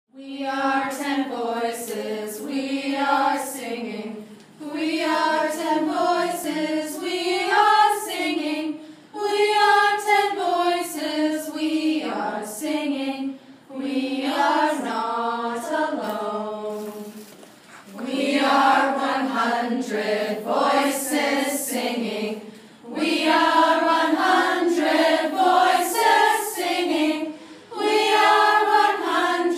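A group of voices singing a song together without accompaniment, in phrases of a few seconds with short breaks between them.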